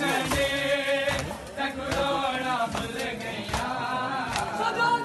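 Men chanting a Muharram mourning lament (nauha) together, with sharp beats keeping time roughly every three quarters of a second.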